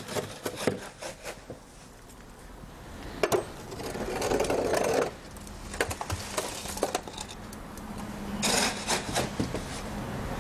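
Metal hand scoop scraping fresh concrete out of a steel wheelbarrow and tipping it into a metal slump cone while filling the cone's last layer in a slump test. Irregular scrapes and clinks, with two longer gritty stretches, about four seconds in and again near the end.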